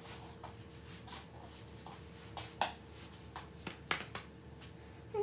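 A few scattered light clicks and taps from objects being handled, over a faint steady hum.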